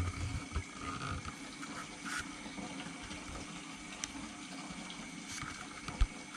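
Aquarium water running and bubbling steadily, with a faint steady hum. A single low thump near the end.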